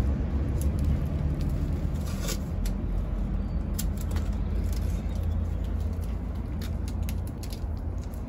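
Masking tape being torn and pressed by hand onto a stud on a boat hull: a short rip about two seconds in and scattered light clicks and rustles. These sit over a steady low rumble, which is the loudest sound.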